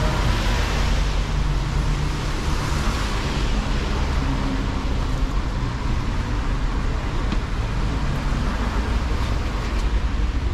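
Steady city traffic noise: a low rumble with an even hiss over it.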